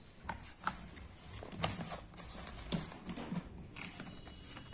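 Handling noise from a fabric tool kit bag: five or so irregular knocks and clicks as hands touch the bag and grip its plastic carry handle.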